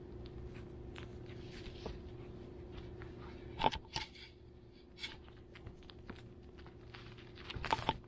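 A long-coat Chihuahua puppy scrabbling and rustling about on a floor pad: scattered light scratches and crinkles of small paws, with louder knocks and rustles about four seconds in as it brushes against the camera, and another cluster near the end as it handles a toy. A faint steady hum runs underneath.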